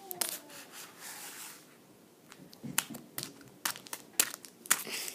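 Foil wrapper of a Pokémon booster pack crinkling and crackling as it is handled and turned over in the hand, an irregular run of sharp crackles.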